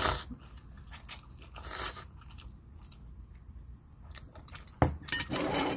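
Close-up eating sounds: a person chewing and slurping instant ramen noodles, in a few short bursts, with a sharp click just before the last one near the end.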